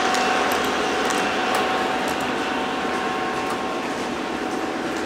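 Lionel O-gauge model train running on three-rail track: a steady rolling rumble and motor hum with a few faint ticks, slowly fading as the last cars move away.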